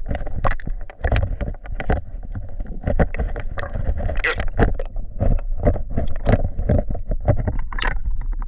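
Muffled water noise picked up by a submerged camera: a steady low rumble with many irregular knocks and clicks of water moving against the housing.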